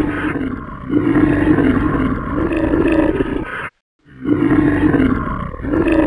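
A series of drawn-out growling roars, each about a second long, for the toy dinosaur and shark at play, over low water sloshing around a half-submerged camera. The sound cuts out completely for a moment just before the middle.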